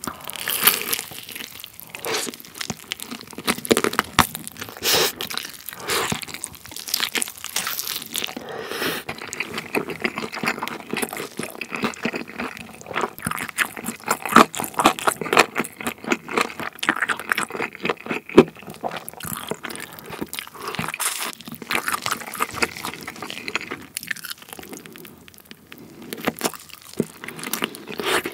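Close-miked eating of a glazed fried chicken piece: the crispy coating crunches in a dense run of bites, mixed with wet chewing. The crunching eases off briefly near the end.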